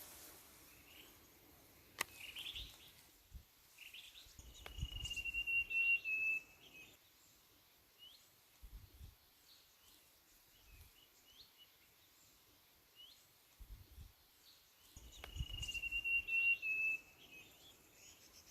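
Wild birds calling in mountain forest: a thin whistle, held about a second and a half and falling slightly, comes twice, with short high chirps in between. A low rumble rises under each whistle, and there is a single sharp click about two seconds in.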